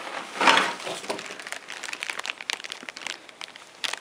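Clear plastic bag crinkling and rustling as a bagged monitor cable is pulled out of a cardboard box and handled, loudest about half a second in.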